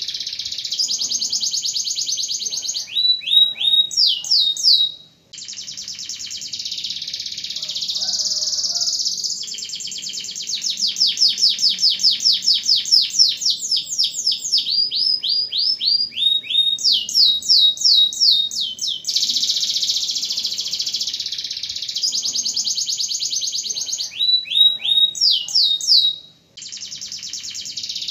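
Domestic canary singing a long, fast song: dense rolling trills alternating with rapid series of falling whistled notes, about five notes a second, with two short breaks.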